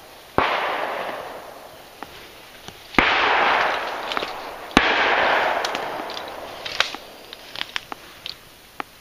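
Three shotgun shots, one about half a second in and a pair close together around three and five seconds in, each followed by a long rolling echo that fades away. A few light clicks follow near the end.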